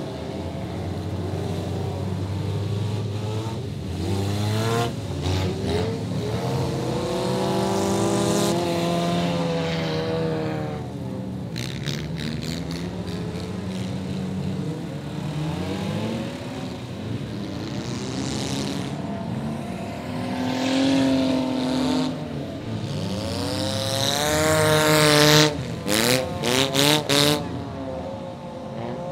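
Several enduro race cars running laps together, their engines revving and passing with rising and falling pitch. Near the end it gets louder, with a quick run of sharp cracks.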